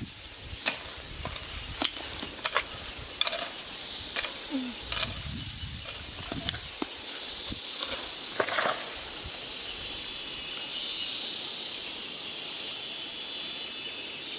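Insects chirring in a fast, even, high pulse, with scattered sharp knocks and clicks through the first half. Past the halfway point a second, hissing buzz swells in and holds.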